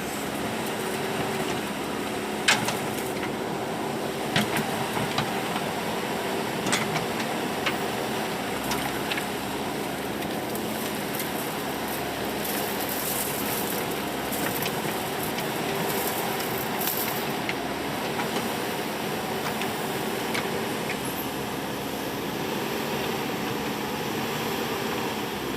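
Backhoe loader's diesel engine running steadily at work, with a few sharp knocks in the first several seconds.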